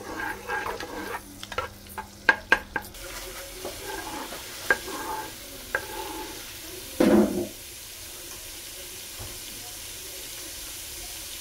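Chopped garlic sizzling in hot oil in a non-stick pan, going golden, with a steady hiss. A spatula clicks and scrapes against the pan, with a quick run of clicks in the first three seconds and a few single taps later, plus one brief louder bump about seven seconds in.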